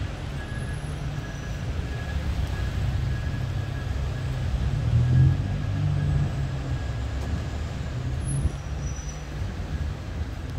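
Low rumble of city street traffic, swelling about halfway through, with a faint thin steady whine above it.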